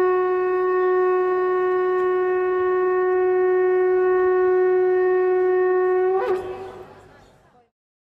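A shofar sounding one long, steady blast, which breaks briefly upward in pitch about six seconds in and then dies away.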